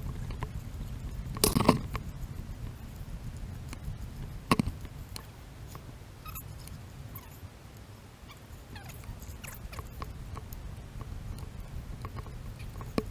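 Footsteps crunching on a dirt and gravel trail over a low steady rumble, with louder knocks about one and a half and four and a half seconds in.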